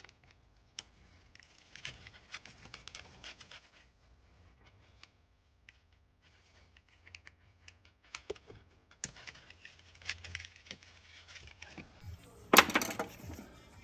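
Plastic wiring-loom connector and cables being handled while its lock tabs are released: scattered small clicks, scratches and rustling, with a louder scraping rustle near the end.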